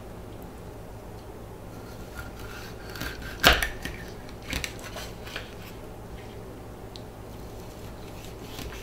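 A curved knife sawing crosswise through a coho salmon to cut a steak, with one sharp knock about three and a half seconds in as the blade comes through onto the cutting board, then a few lighter taps.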